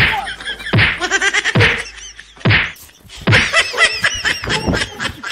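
A scuffle: slaps landing about once a second, each followed by cries and laughter, the vocal sound growing busier in the last couple of seconds.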